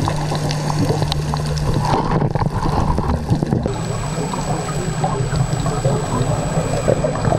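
Underwater noise picked up through a camera housing: scuba bubbles gurgling and crackling over a steady low rumble. A faint high-pitched whine joins about halfway.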